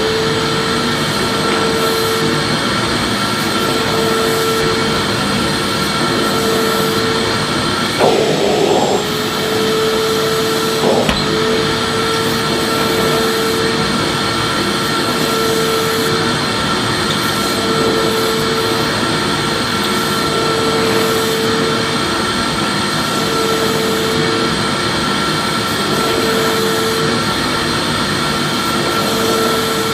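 Vacuum cleaner running steadily: an even rushing hiss with a thin high whine and a lower hum that swells and fades about every two seconds. There are brief knocks about eight and eleven seconds in.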